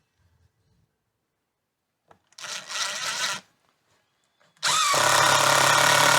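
Power drill driving a strike-plate screw into the door frame: a burst of about a second, then after a pause a longer steady run starting near the end.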